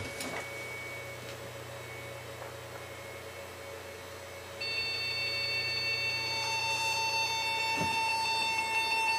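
FS-100 touchscreen POS terminal sounding a continuous electronic alarm tone after power-on: a steady high-pitched tone starts about halfway through, and a lower tone joins about a second later, both held without a break. This is the alarm the unit gives when its RAM is not properly seated or has been jarred loose.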